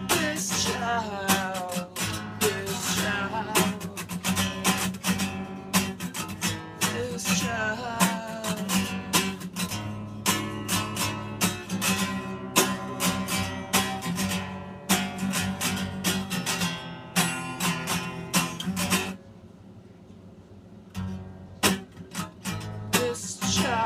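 Acoustic guitar strummed with a man singing along. The playing stops for about two seconds near the end, then the strumming picks up again.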